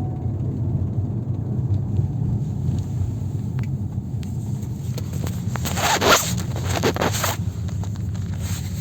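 Vehicle driveline running with a steady low rumble. A rasping rattle comes in twice, about six and seven seconds in; the owner suspects the drive shaft.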